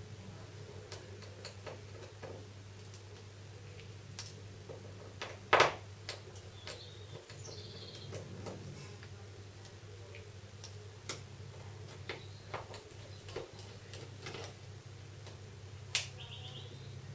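Small scattered ticks and clicks of a precision Phillips screwdriver turning out the tiny screws of a Samsung Galaxy S2's plastic casing, with a louder clack about five and a half seconds in and another near the end. A steady low hum runs underneath.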